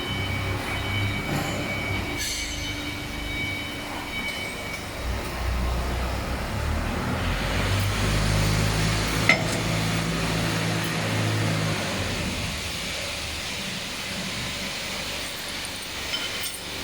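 Steady rumble and hum of running machinery, with thin high whining tones over the first few seconds. A single sharp metallic clink comes about nine seconds in.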